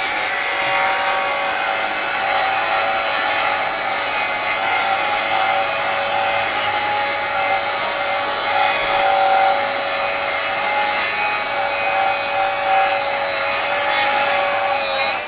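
Flex FX2141R 24-volt brushless rear-handle circular saw with a 7-1/4-inch blade, running under load through a long rip cut in pressure-treated lumber. It holds a steady whine over the hiss of the blade chewing wood, and cuts off at the very end when the trigger is released.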